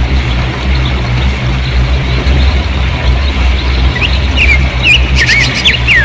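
Stream water rushing and splashing over rocks with a steady, deep rumble. About two-thirds of the way in, small birds start chirping in short, quick rising-and-falling calls over the water.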